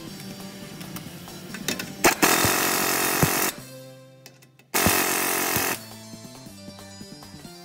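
A power tool run in two loud bursts of about a second each, a little over a second apart, over background music.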